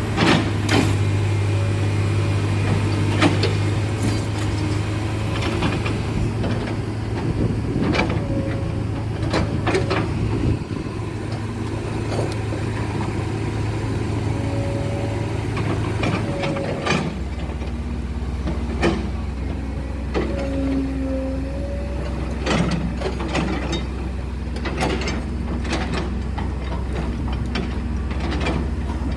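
Heavy diesel engine running steadily; its low hum drops to a deeper note a little past halfway. Scattered sharp metallic clanks and knocks are heard throughout.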